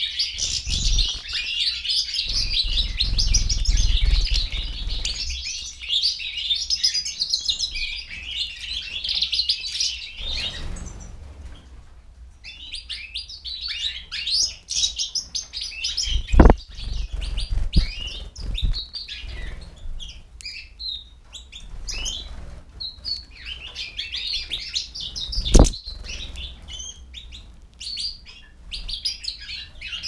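European goldfinches twittering in a dense run of quick chirps, which break off briefly about eleven seconds in. A few sharp knocks cut through, the loudest about sixteen and twenty-five seconds in.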